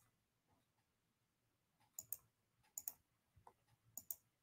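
Computer mouse double-clicking: three quick pairs of sharp clicks about a second apart, the rest near silence.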